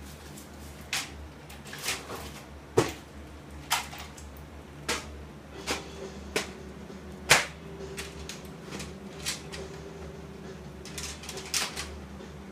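Drum shells and their metal hardware of a nesting travel drum kit knocking and clunking as the drums are handled and fitted inside one another by hand. There are about a dozen irregular knocks, roughly one a second, the loudest about three and seven seconds in.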